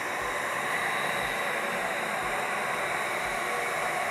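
Window-cleaning robot's vacuum suction fan running steadily, holding the robot to the glass as it wipes its way up the pane: an even hiss with a faint high whine.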